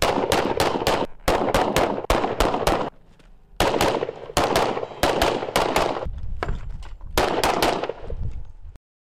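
Handguns firing in rapid strings, several quick shots a second, broken by short pauses. The shooting cuts off abruptly near the end.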